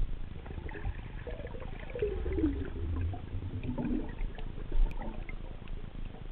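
Underwater sound picked up by a camera moving beneath the surface: a steady low rumble of water with scattered faint clicks and crackles, and wavering gurgling tones rising and falling through the middle.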